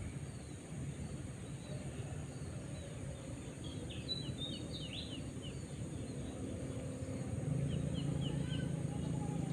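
Small birds chirping in quick runs of short falling notes, twice, over a steady low engine hum that grows louder near the end.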